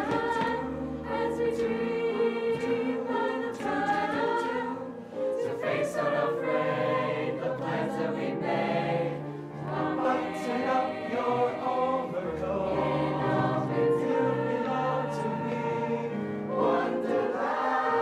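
A mixed-voice high school show choir singing in harmony.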